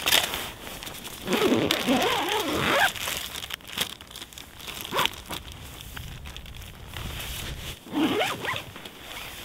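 Zipper on the door of a Pomoly LEO 2 hot tent being pulled, with a long rasping pull about a second and a half in and a shorter one near the end.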